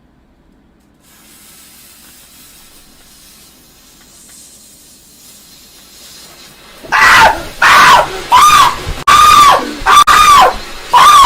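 A lit firework fizzing with a faint steady hiss. About seven seconds in, loud high-pitched shrieks start, one after another, each about half a second long.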